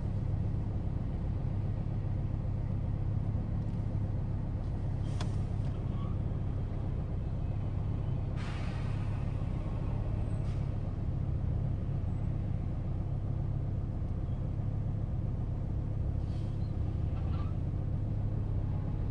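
Ford Focus diesel engine idling steadily, heard from inside the car's cabin as a low, even hum. A few brief faint noises cut in over it, a click about five seconds in and a short hiss a few seconds later.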